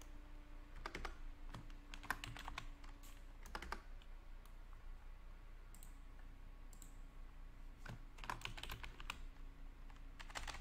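Typing on a computer keyboard: irregular clusters of keystrokes with short pauses between them, over a faint steady hum.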